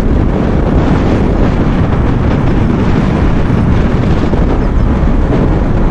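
Steady wind rushing over the microphone of a moving motorcycle, with the bike's engine and road noise underneath.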